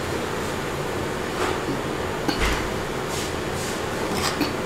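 A spoon and fork scraping and clinking against a clay biryani pot and a plate as rice is served: a handful of short scrapes and a soft knock, over a steady room hum.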